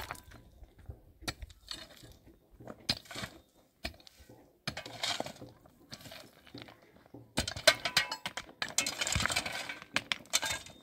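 Irregular clicks, clinks and knocks of small hard objects being handled, coming thicker and busier in the second half.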